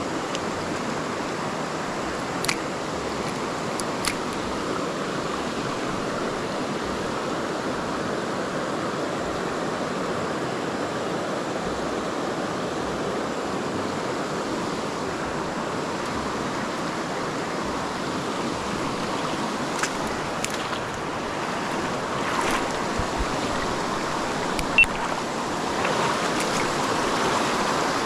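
Steady rushing of a rainforest creek flowing over rocks, with a few light, sharp clicks, the sharpest one near the end.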